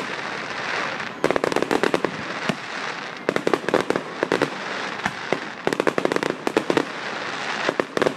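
Fireworks display: volleys of rapid crackling pops, each lasting about a second, coming roughly every two seconds over a steady background noise.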